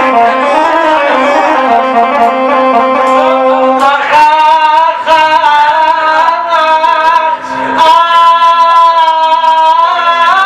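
Music: an Iraqi mawwal, a singer's ornamented vocal line over instrumental accompaniment. From about four seconds in, the voice holds long, steady notes.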